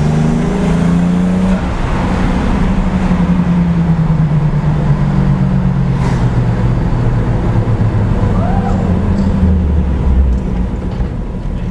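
Twin-turbo V6 engine of a modified Volkswagen Fox heard from inside the cabin, revving up under boost in third gear. About a second and a half in the driver lifts off, and the revs fall away slowly as the car coasts, the engine still running. It is a test that the engine does not stall after being pressurised.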